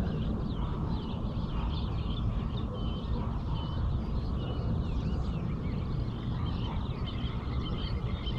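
Many small birds chirping and whistling together in a dawn chorus, in quick overlapping phrases, over a steady low rumble.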